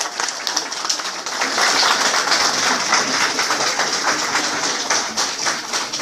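Audience applauding, a dense, steady patter of hand claps.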